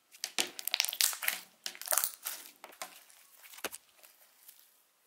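Thick, glossy white slime being squished, folded and stretched by hand, giving a run of wet clicks and crackles. They come thickest in the first few seconds and thin out toward the end.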